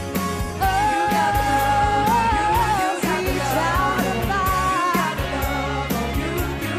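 A woman singing live into a microphone over an amplified band with a steady drum beat and bass, holding one long note from about half a second in for about two seconds before moving on through the melody.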